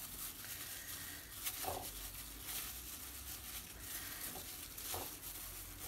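Faint soft rustling and patting of a plastic-gloved hand pressing a marinated chicken wing into dry flour, over a low steady hiss, with a few soft taps. This is the wing being dredged in flour by hand.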